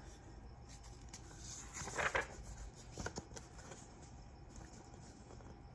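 A page of a paperback picture book being turned: a brief, faint paper rustle about two seconds in, followed by a few light taps, over a low steady hum.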